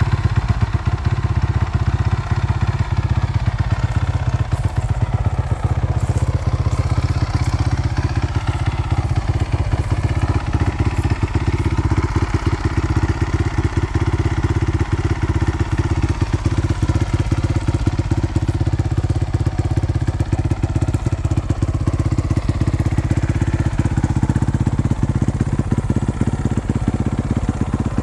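2017 Honda CRF450R's single-cylinder four-stroke engine running at a steady idle.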